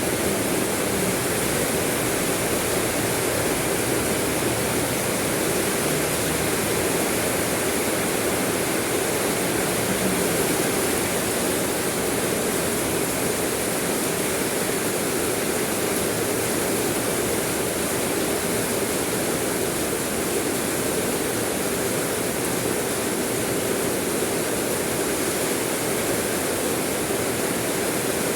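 Steady rain: an even, unchanging hiss with no single drops or other sounds standing out.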